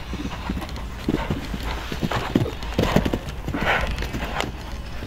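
Hoofbeats of a horse cantering over a show-jumping fence and away on grass, an irregular run of dull thuds that is loudest around the middle. A short hiss-like rush sounds about three and a half seconds in, over a steady low rumble.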